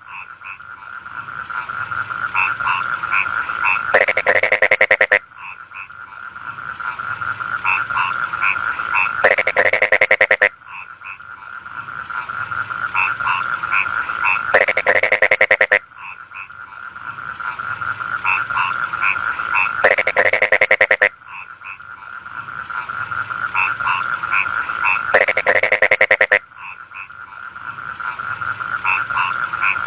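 Frogs calling in a rice field: a steady chorus, with a loud call of rapid croaking pulses every five or so seconds that swells and then stops abruptly.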